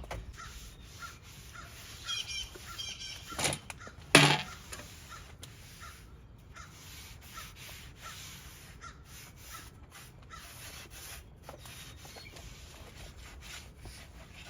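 A crow cawing: two loud, harsh caws about three and a half and four seconds in, with fainter bird calls just before.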